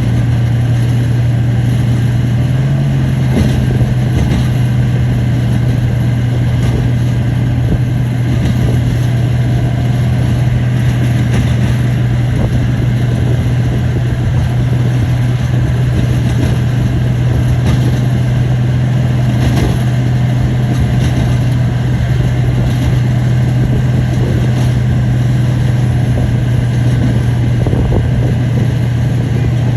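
Heavy bulldozer diesel engine running at a steady speed, a loud, even drone that holds one pitch throughout.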